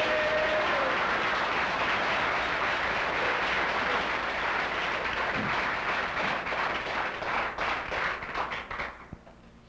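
Crowd applauding in a room. The clapping breaks into scattered separate claps near the end and stops about nine seconds in.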